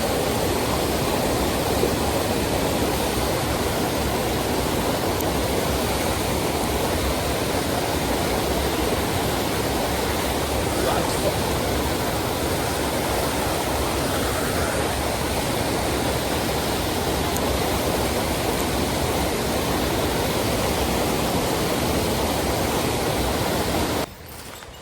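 Fast mountain stream water rushing steadily over rocks, a constant dense roar that cuts off abruptly near the end.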